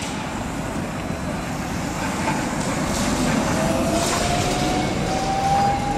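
Electric trolleybuses moving through a street intersection: a steady rumble of traffic and tyres. From about halfway, a thin whine slowly rises in pitch as a trolleybus gathers speed.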